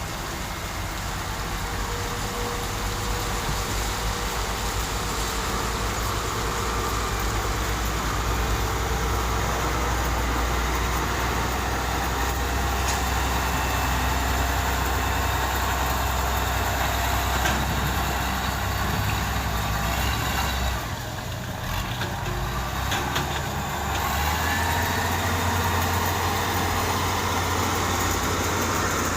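Heavy diesel engines of road-construction machinery running, a steady low rumble that drops briefly about two-thirds of the way through and picks up again at a slightly different pitch.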